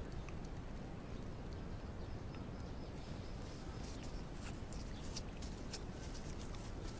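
A cat lapping milk: quick, soft wet clicks of the tongue at about three or four a second, starting about three seconds in, over a steady low background hum.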